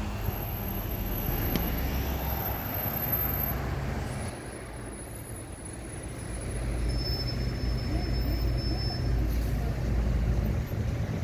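City street traffic noise with a bus's diesel engine running close by; its low steady rumble dips for a couple of seconds in the middle, then grows louder in the second half.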